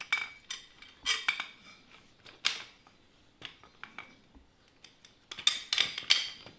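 Metal-on-metal clinks and short scrapes as steel bolts are worked through the holes of a lawn spreader's steel handle and square handle tube. The clinks come in irregular clusters, loudest near the end.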